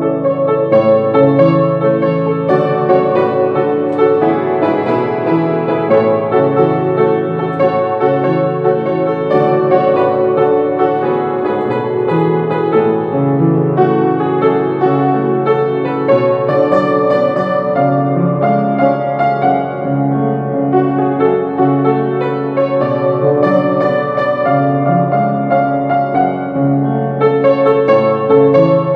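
Piano music, a steady run of sustained notes.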